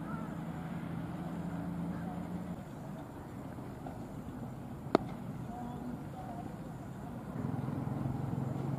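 Cricket bat striking a leather ball once, a single sharp crack about five seconds in. It sits over a low steady hum that fades out for a few seconds in the middle, with faint voices.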